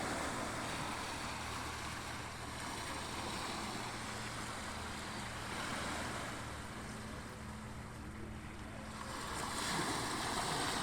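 Ocean surf: waves washing in as a continuous rush, easing off in the middle and swelling again near the end, over a faint steady low hum.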